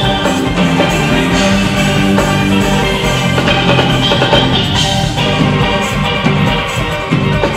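Live band music led by two steelpans playing a melody together, over a drum kit keeping a steady beat.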